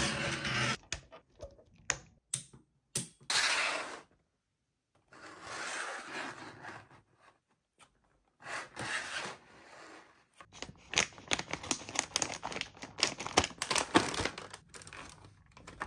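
Plastic toy packaging being handled and opened: short clicks and rustles, then from about ten seconds in a dense crinkling and crackling of stiff clear plastic as a blister tray is pulled out of its pack.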